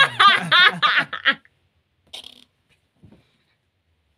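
A loud burst of laughter, broken into quick pitched pulses, lasting about a second and a half, then two faint short sounds and quiet.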